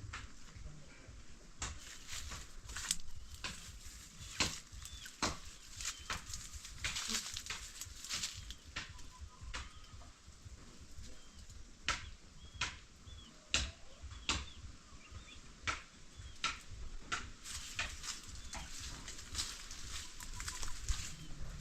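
Chickens moving about, with irregular sharp scratching and flapping clicks and a few faint high cheeps.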